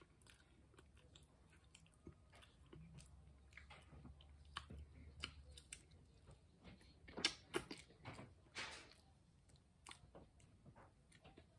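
Faint close-up eating sounds: soft chewing, lip smacks and wet mouth clicks as seafood boil is eaten by hand and sauce is sucked off the fingers, with a few louder smacks about seven to nine seconds in.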